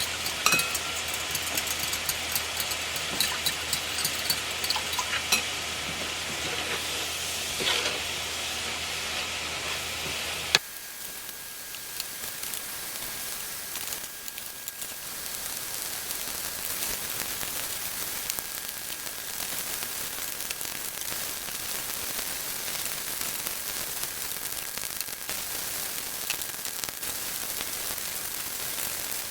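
Sliced onion, diced green pepper and mushrooms sizzling in butter in a cast iron skillet as their water cooks off, with scattered clicks of stirring in the first ten seconds. About ten seconds in the sound changes abruptly to a steadier, slightly quieter sizzle.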